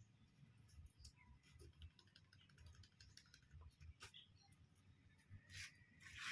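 Near silence with faint scattered ticks and crinkles of clear plastic and wet frog meat being handled, and a slightly louder rustle near the end.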